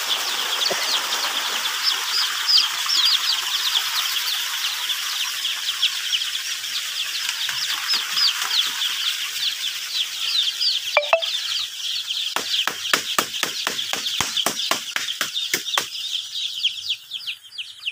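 Hundreds of Sonali chicks peeping all at once, a dense chorus of short, high, falling cheeps. From about twelve seconds in, a quick series of sharp clicks runs over the chorus for a few seconds.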